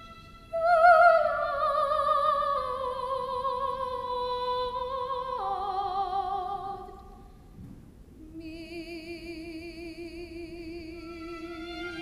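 Classically trained soprano singing a slow line that steps downward with wide vibrato, with bowed strings accompanying. The line fades a little after seven seconds in, and a long held low note with vibrato follows.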